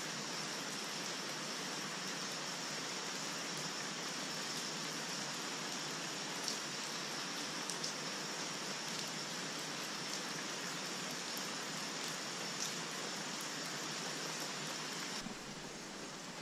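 Steady outdoor background hiss with a steady high-pitched buzz over it, and a few faint clicks as small sticks are set upright against each other. About fifteen seconds in, the hiss drops and the high buzz stops.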